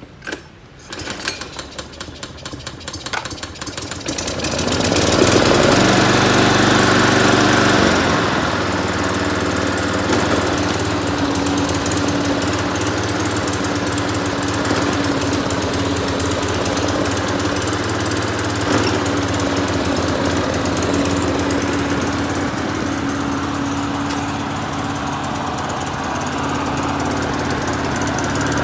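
Ryobi self-propelled four-stroke petrol lawn mower engine being started: a few seconds of uneven clatter, then it catches about four seconds in, runs fast and loud for a few seconds, and settles about eight seconds in to steady running.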